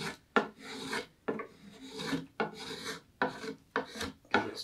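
Carving knife slicing thin shavings from the rim of a green black walnut bowl: a series of short scraping cuts, a few a second, with a sharp click about a third of a second in.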